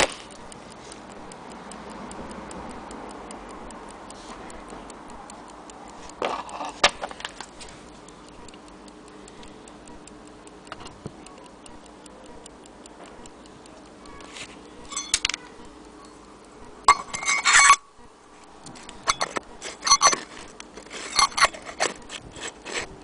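Small brass clockwork movement, a Gluck Engineering 24-hour unit, running with rapid, even ticking. Several louder bursts of handling clatter break in as it is turned over in the hand, the loudest about three-quarters of the way through.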